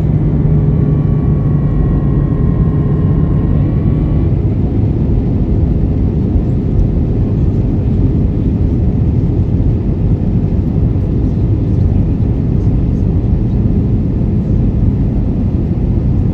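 Steady cabin roar of an Airbus A320 in flight, heard from inside. A few steady tones ride over the roar and fade out about four seconds in.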